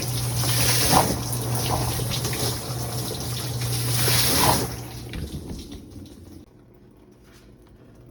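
Whirlpool dishwasher mid wash cycle: water spraying and splashing inside the tub over a steady low hum, both cutting off about four and a half seconds in as the cycle is suspended, leaving only faint drips. The spray is weak; the owner suspects a faulty water inlet valve is underfilling the tub.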